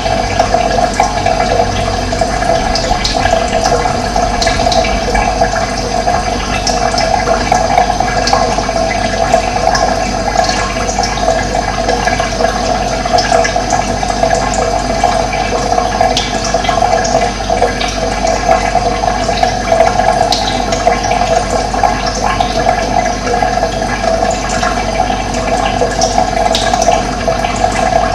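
Steady rushing of running water, with faint short high chirps of birds scattered through it.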